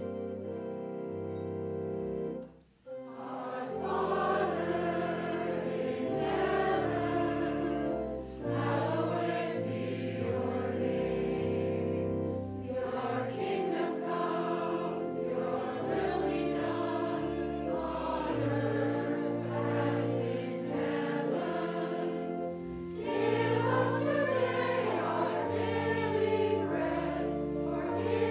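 A church organ holds a chord, breaks off briefly about three seconds in, then accompanies voices singing together in a sung part of the communion service.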